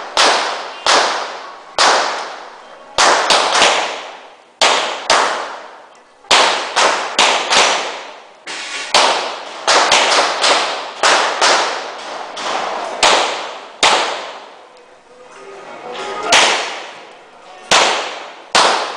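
Glock pistol fired in a competition string: roughly two dozen sharp shots, each with a ringing echo tail. They come in quick doubles and runs broken by short pauses, with one longer lull about two-thirds of the way through.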